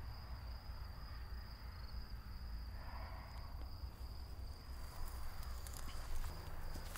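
Insects trilling steadily in a high, unbroken tone, over a low steady rumble.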